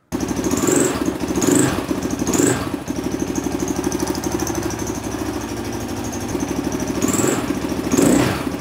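A KTM LC4 660 single-cylinder four-stroke engine, running on a programmable Ignitech tuning CDI, catches abruptly and fires up. It gets three quick throttle blips, settles into an even idle, and is blipped twice more near the end.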